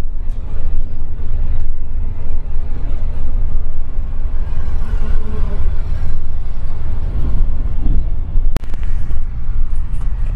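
Steady low engine and road rumble heard from inside a moving Scania coach.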